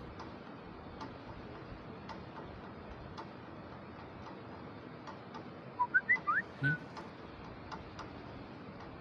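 A clock ticking about once a second. About six seconds in, a phone sounds a short notification of five quick chirping tones.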